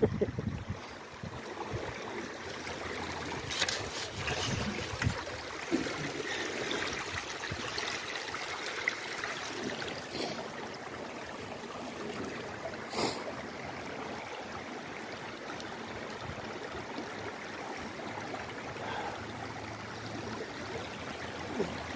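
Creek water running steadily, with a few sharp clicks scattered through it.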